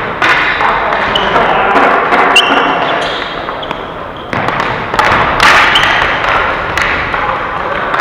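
Ball hockey play: sticks and the ball knocking and thumping against the floor and boards in quick, irregular hits, with short squeaks and a steady noisy background of voices in the rink.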